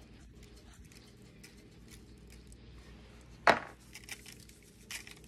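Seasoning shaken from a shaker onto asparagus on a foil-lined baking tray: faint scattered ticks of grains and the shaker against the foil and tray, with one sharp click about three and a half seconds in.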